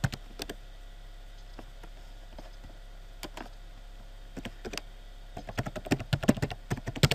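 Computer keyboard typing: a few scattered keystrokes, then a quicker run of key presses near the end, closing on a sharper, louder key press.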